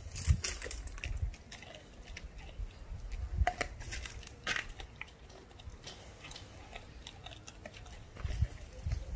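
German shepherd puppy chewing a raw chicken quarter: irregular wet crunches and clicks as it bites into the meat and bone, loudest around the middle.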